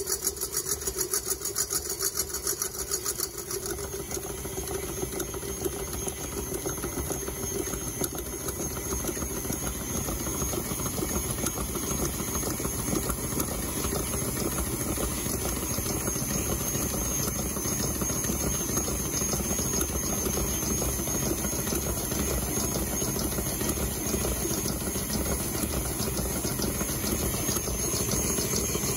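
KitchenAid stand mixer running steadily on medium speed, its wire balloon whisk beating egg whites in the steel bowl.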